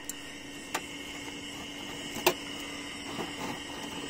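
Metal tongs knocking against lumps of charcoal and the steel grill box: two sharp clicks, the second louder, over a faint steady hum.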